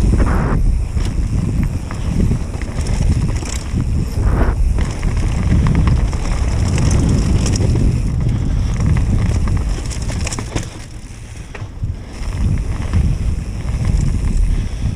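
Wind buffeting an action-camera microphone on a mountain bike riding fast down a leaf-covered dirt trail, mixed with tyre noise and scattered knocks from the bike over bumps. The wind noise eases briefly about eleven seconds in.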